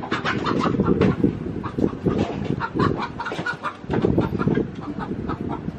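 A flock of backyard hens clucking, many short calls overlapping one another without a break, over a low rumble.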